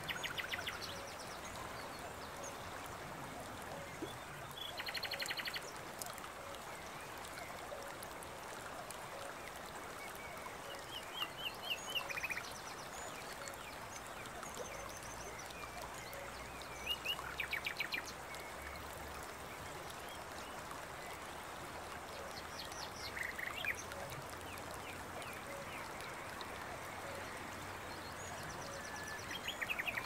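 Forest ambience: a steady rushing background with a bird giving a short, rapid trilling call every five or six seconds.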